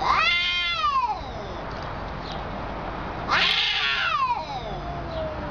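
Cats yowling at each other in a territorial standoff: two long drawn-out yowls, the first about a second long, the second longer, starting harsh and sliding slowly down in pitch.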